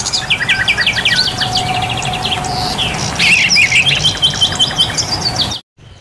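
Many caged songbirds chirping and calling over one another in rapid runs of short, high notes and trills. The sound cuts off abruptly near the end.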